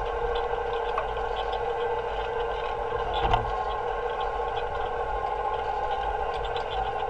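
Electric-converted Allis-Chalmers Model G tractor running steadily with a constant electric motor whine over a low rumble, light rattling clicks throughout and a single knock about three seconds in.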